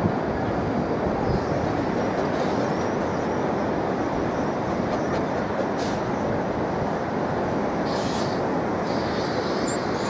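Kerr Stuart 4185 steam locomotive hauling its carriages, heard from far off as a steady rushing noise with no clear beat of exhaust.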